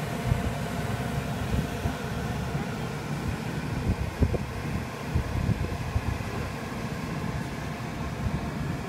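Steady low rumbling background noise with a faint hum, with a few brief low thumps near the middle; no animal calls stand out.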